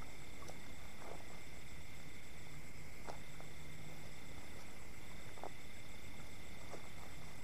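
Night insects, crickets among them, calling in steady high-pitched tones, one of them pausing and starting again, over a low steady background noise with scattered faint clicks.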